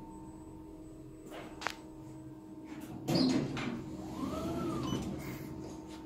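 Passenger lift cab running and coming to a stop: a steady hum with two sharp clicks about a second and a half in, then a thump about three seconds in followed by a whine that rises and falls.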